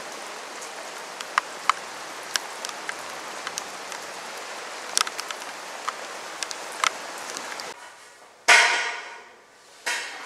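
Rain falling on a city street: a steady hiss with scattered drops ticking sharply. About three-quarters of the way through, the rain cuts off and two loud sudden noises follow, each fading out over about a second, the first the louder.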